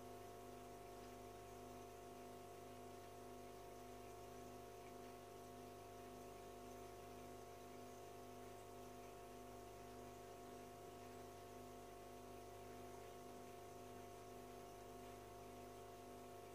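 Near silence with a faint, steady hum from the aquarium's electric filter pump.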